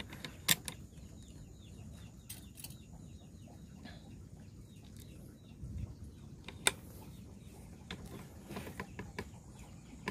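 Two sharp clicks from a PCP air rifle, the first about half a second in and the second about six seconds later, over a faint steady outdoor background.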